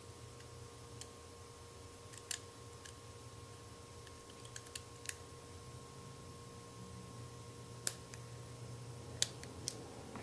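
Scattered small metallic clicks, about eight of them at irregular intervals, of a lock pick probing and working the pin stacks of a Sparrows practice lock fitted with security pins.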